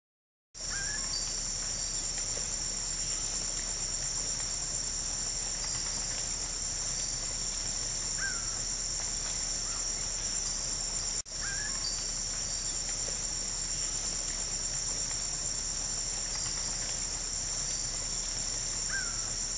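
Steady, high-pitched chorus of insects trilling without a break, with a few faint short chirps now and then. The sound cuts out for an instant about eleven seconds in.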